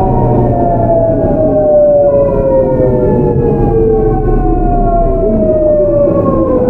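Seoul Metro 8000 series GEC Alsthom GTO-thyristor VVVF inverter and traction motors whining in several tones that fall steadily in pitch as the train slows under electric braking, over the rumble of wheels on rail.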